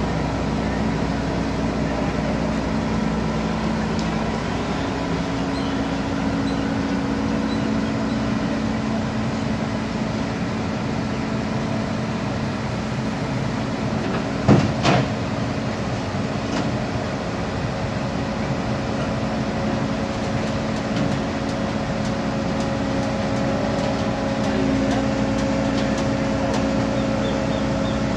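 Diesel engine of a Volvo EC210 crawler excavator running steadily under load as it climbs onto the tilted deck of a low-bed truck. There is one sharp knock about halfway through, and a steady higher whine comes in during the second half.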